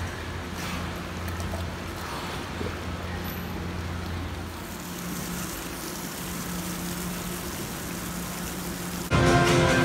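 Ambience of a dolphin pool: a wash of churning water under a steady low hum. Background guitar music starts suddenly near the end.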